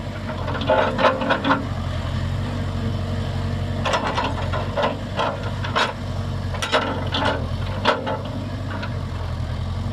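Case 580 Super K backhoe's diesel engine running steadily, with clusters of sharp clanks and knocks from the machine working about a second in, again from about four to six seconds, and near eight seconds.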